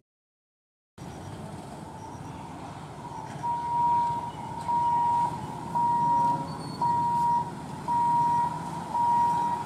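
Electric level-crossing warning buzzer sounding a steady single-pitched beep about once a second, starting a few seconds in, over the noise of road traffic at the crossing: the warning that the gate is about to close for an approaching train.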